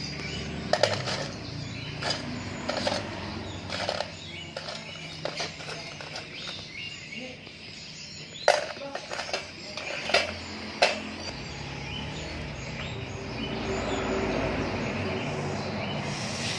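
Scattered sharp clicks and knocks of hand tools at work on refrigerator pipework, the loudest a few strikes a little past halfway, then a steady rushing noise that starts about three-quarters of the way through.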